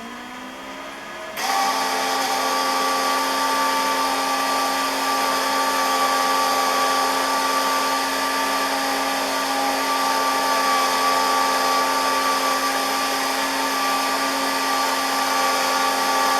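Miller Multimatic 215 MIG welder with the gun trigger held: the wire-feed motor runs with a steady whine while shielding gas hisses, feeding wire through the gun liner and purging it. It starts abruptly about a second and a half in, after a fainter hum rising in pitch.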